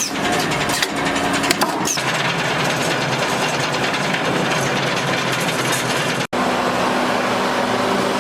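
Workshop machinery running, most likely a CNC copper busbar punching and shearing machine with its hydraulic power unit: a steady mechanical hum and whir, with a few sharp clicks in the first two seconds.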